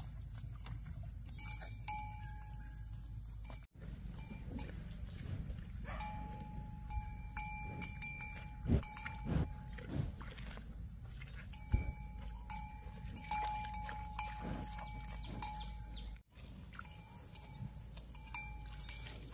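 Cattle grazing close by: grass tearing and chewing in sharp clicks and soft thumps. A bell clinks on and off in short ringing spells as the cows move their heads.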